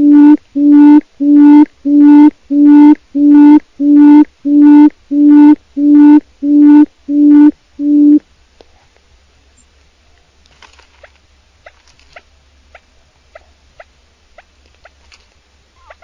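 Quail calling: a run of loud, low hooting notes, all on one steady pitch at about one and a half notes a second, which stops about eight seconds in. After that only faint, short chirps are heard.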